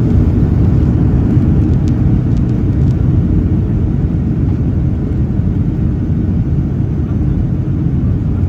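Steady low rumble inside the cabin of a Boeing 737-900 as it taxis, from its CFM56-7B turbofan engines and the airframe rolling over the taxiway.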